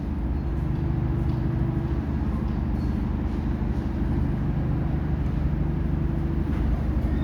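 A heavy vehicle's engine running steadily with a low, even hum.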